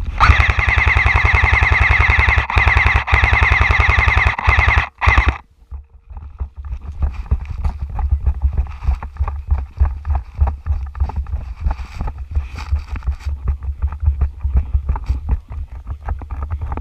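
Airsoft rifle firing a long full-auto burst of about five seconds, a loud, even rapid rattle that stops suddenly. Quieter irregular rustling and knocks follow.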